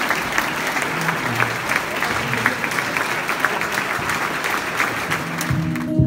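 Large crowd applauding, a dense, steady mass of clapping. Near the end the applause cuts off abruptly and an acoustic guitar starts playing.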